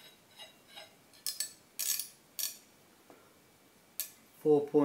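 A handful of light, sharp metallic clicks spread over a few seconds as a micrometer's ratchet thimble is turned to close it on a steel brake disc for a thickness reading. A voice starts briefly near the end.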